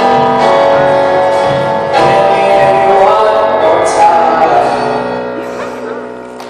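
Live band with strummed acoustic guitar and voices singing together, ending on a held final chord that fades away over the last couple of seconds.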